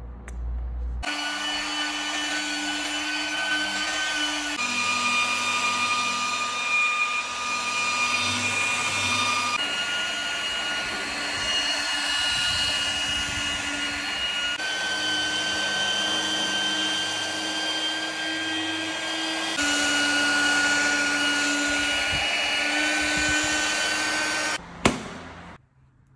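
Electric rotary polisher running steadily with a spinning pad on car paint: a motor whine over a hiss. Its pitch shifts abruptly a few times, and it stops with a sharp click near the end.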